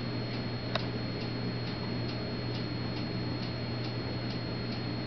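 Steady, even ticking, a little over two ticks a second, over a constant low hum, with one sharper click about three-quarters of a second in.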